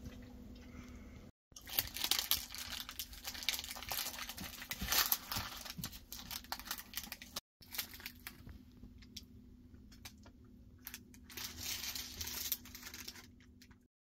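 Kitchen handling sounds during food preparation: crinkling and rustling of packaging with light clicks and clatter, over a faint steady hum. The sound cuts off abruptly twice.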